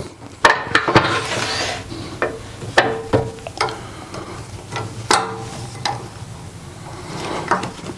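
Scattered clicks, knocks and metallic clunks of a wood lathe being set up by hand, a green red oak bowl blank being seated between the drive spur and the tailstock centre and the tailstock tightened.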